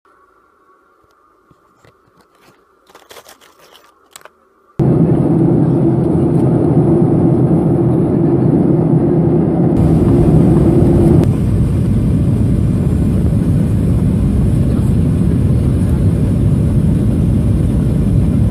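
Faint clicks, then about five seconds in a sudden switch to loud, steady cabin noise in a Boeing 737-800 near the wing: the rumble of the CFM56-7B jet engines and rushing air. A low hum in it drops away about eleven seconds in.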